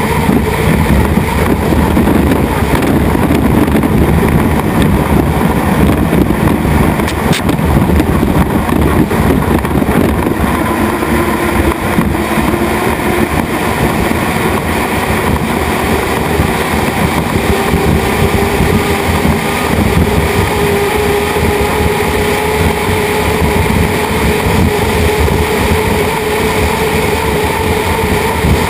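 Turbine-powered unlimited hydroplanes running at race speed, a loud steady rush mixed with wind noise. A faint whine rises slowly in pitch from about a third of the way in.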